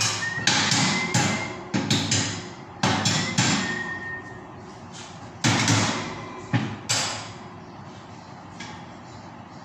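A hammer striking the steel rods of a round wire grill grate: about eleven sharp metallic blows in uneven groups, some leaving a short ring, stopping about seven seconds in.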